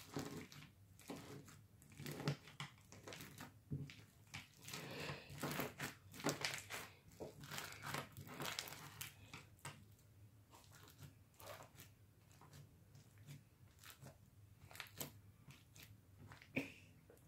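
Slime full of pony beads being squeezed and pressed by hand, giving faint, irregular crunching and crackling, busiest in the first half and sparser later.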